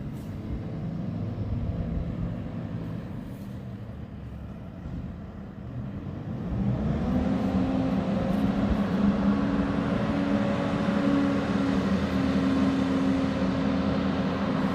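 FPV quadcopter's motors and propellers running at low throttle, then spinning up about six and a half seconds in to a louder, steady hum.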